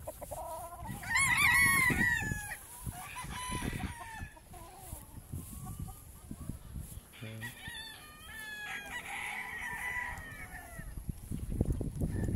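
Gamecock roosters crowing several times, the loudest crow close by about a second in and others further off, some overlapping.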